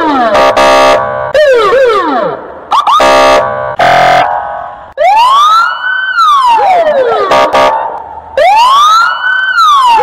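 Russian police siren switching between tones: quick falling yelps broken by short buzzy horn blasts in the first half, then two long wails that each rise and fall over about two and a half seconds.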